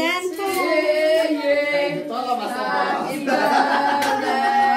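A group of voices singing together, with some notes held longer near the end.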